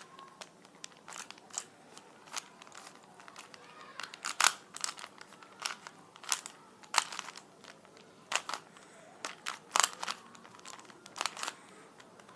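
Rubik's cube being turned fast by hand: a quick, irregular run of plastic clicks and clacks as the layers snap round, several a second.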